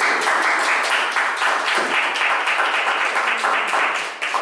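Audience applauding: a dense patter of many hands clapping that breaks out suddenly and holds steady.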